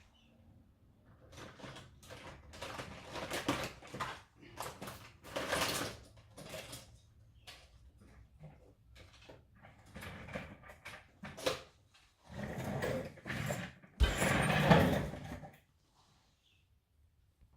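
Multimeter test leads being handled, with irregular rustles and clicks and a louder, longer rustle starting suddenly about fourteen seconds in.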